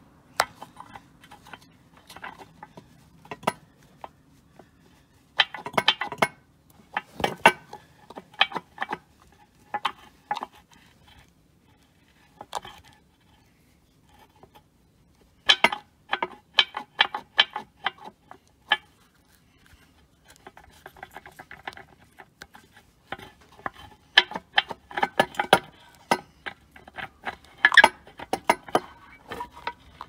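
Toyota FJ Cruiser lower control arm ball joint worked back and forth by hand, clicking and clacking in several bursts of rapid clicks with pauses between. This is the abnormal noise of a ball joint whose rubber dust boot is torn.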